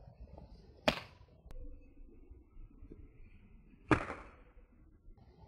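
Two sharp slaps of a rubber sandal striking a person's body, about three seconds apart.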